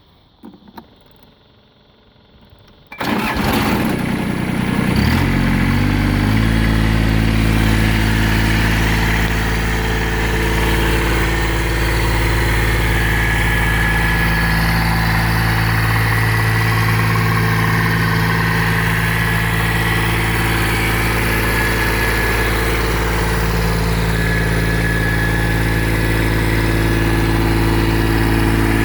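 Kubota BX2200's three-cylinder diesel engine cranked by the starter about three seconds in, catching within a few seconds and settling into a steady idle.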